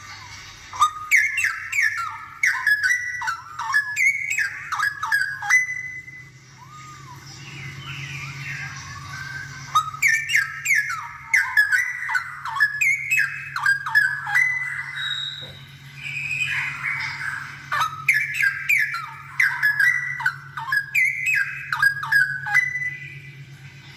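Straw-headed bulbul (cucak rowo) in full song, giving loud, fast-changing whistled phrases in three bouts. A low steady hum runs underneath.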